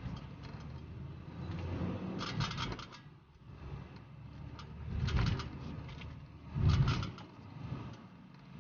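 Low rumble of a moving car heard from inside the cabin. It is broken by short bursts of rattling and low thumps about two, five and seven seconds in, the last two the loudest.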